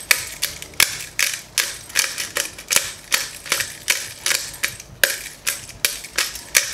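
Glass pepper grinder being twisted by hand, its grinding top cracking peppercorns in a steady run of sharp clicks, about two to three a second.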